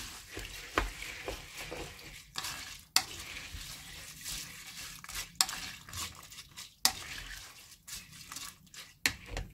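Wooden spoon stirring soaked glutinous rice, grains and beans in water in an electric pressure cooker's inner pot: a wet, gritty swishing broken by sharp clacks every second or two.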